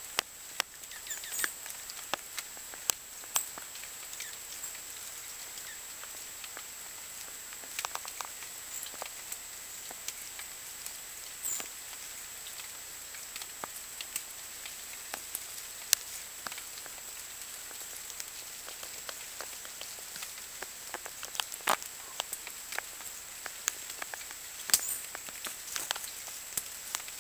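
Small birds at a seed feeder: irregular light taps and clicks from pecking and landing, with a few brief high chirps.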